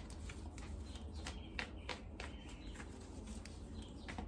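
A deck of tarot cards being shuffled and handled in the hands: a string of soft, irregular clicks and taps.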